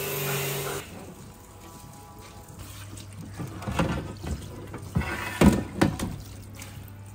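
Water running and splashing in a parts-washer tub as a greasy engine part is washed under the hose, with a few sharp knocks against the tub about five and a half seconds in.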